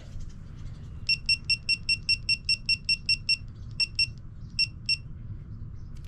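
Digital torque wrench beeping: a quick run of short, identical high beeps, about five a second, then a few scattered beeps, as its buttons are pressed to set the target torque of 24 N·m.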